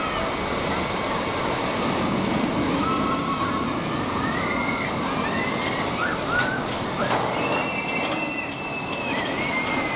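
Gerstlauer Euro-Fighter roller coaster car running around a spiral of steel track: a steady rumble of wheels on rail, with wavering high tones gliding up and down. Scattered clicks and clatter come in over the second half.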